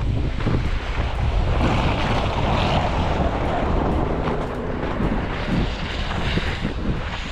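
Wind buffeting the microphone during a snowstorm: a steady low rumble with a hiss that swells about two to four seconds in.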